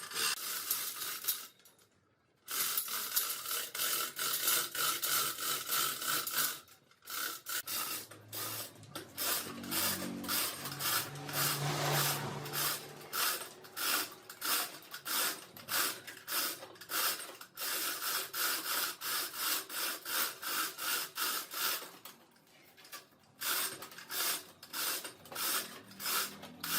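A tool scraping on wood. It is steady for the first few seconds, then turns into regular back-and-forth strokes about two to three a second, like hand sawing or sanding, with a brief pause near the end.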